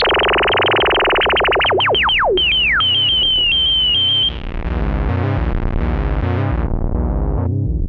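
ARP Avatar analog synthesizer playing a fast-pulsing tone through its resonant filter, with the LFO on the filter cutoff. The resonant peak sweeps down in a run of falling chirps. After about four seconds the sound turns darker in steps, leaving low repeating pulses.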